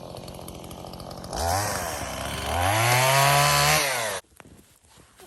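Two-stroke chainsaw idling, then revved up briefly, then revved again and held high for about a second and a half before the sound cuts off suddenly. Faint clicks follow near the end.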